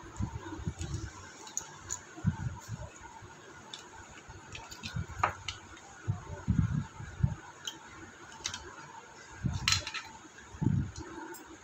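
Handling noise from a small plastic hanging-scale case being worked open by hand: irregular low knocks and bumps, with a few sharp plastic clicks.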